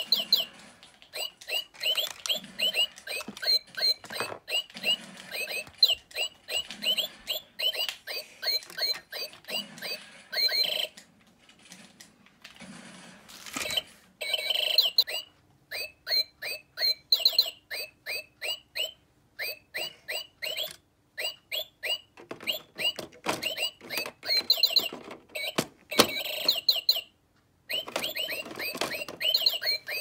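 Toy blue jay on a perch base chirping: quick runs of short electronic tweets and whistles, with two brief pauses.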